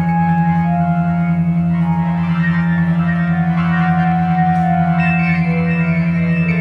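Ambient electronic music: a steady, pulsing low drone under long held tones that slide from note to note.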